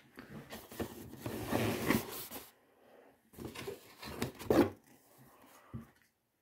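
Paper and cardboard rustling and scraping as a printed leaflet is handled and taken from a cardboard parcel box. It comes in two spells, then a short knock near the end.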